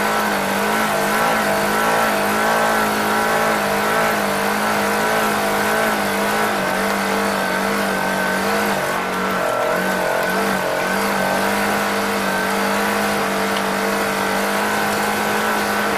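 Side-by-side off-road vehicle's engine running at a steady speed while driving, over a steady rush of wind and terrain noise. The engine note wavers slightly and dips briefly twice about halfway through.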